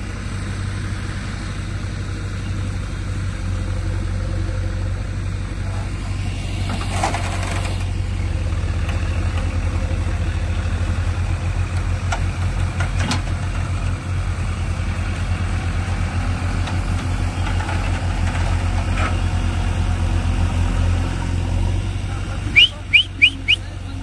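Diesel engines of a JCB backhoe loader and a mud-stuck 4WD tractor running steadily. Partway through, the engine note becomes a pulsing throb as the backhoe's bucket pushes against the tractor to free it. Near the end come four short, sharp, high-pitched beeps.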